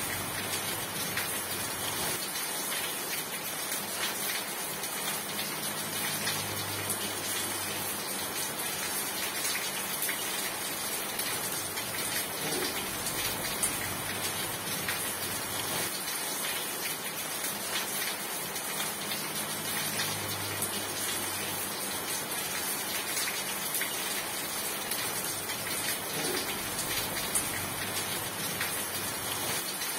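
Steady rain falling, a constant hiss with scattered drops tapping.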